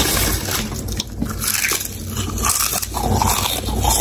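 Lay's potato chips crackling as a gloved hand rummages in a pile of them, and crisp crunching of chips being bitten and chewed close to the microphone.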